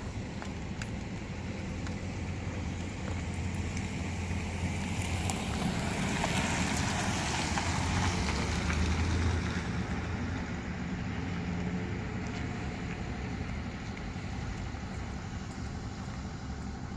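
A motor vehicle driving past close by: the noise swells over a few seconds, is loudest about eight seconds in and fades away, over a steady background of outdoor traffic.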